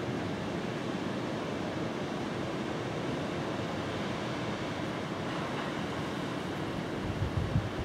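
Distant surf of the Sea of Japan washing steadily on the shore. Near the end, wind gusts rumble on the microphone.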